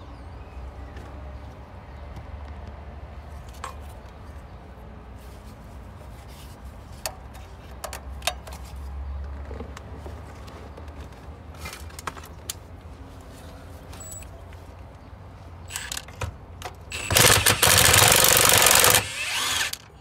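Cordless impact wrench undoing a 10 mm nut: a few short blips, then it runs for about two and a half seconds near the end and stops suddenly. A few faint knocks come before it.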